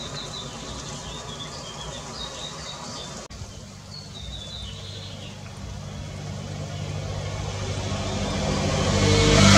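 An engine drawing nearer, a low hum that grows steadily louder through the second half and is loudest at the end. Faint, short high bird chirps come in the first half.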